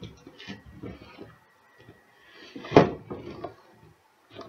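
Cardboard figure box with a plastic window being handled and turned over on a desk, with scrapes and light knocks, and one louder scrape ending in a knock about three seconds in.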